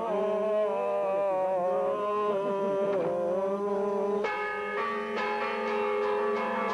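Voices singing an Orthodox chant, then about four seconds in church bells start ringing, a clash of several steady, overlapping bell tones that carry on.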